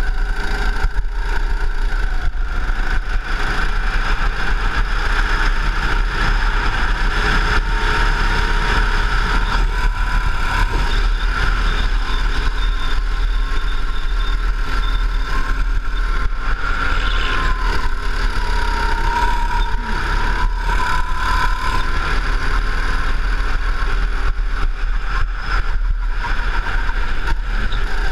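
Go-kart engine running at speed, heard from on board, its pitch rising and falling a little as the throttle changes.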